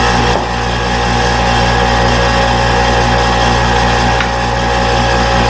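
Electric grinder running steadily while rounding off the edges of a small piece of 1/8-inch aluminum bar, with a constant motor whine under the grinding noise.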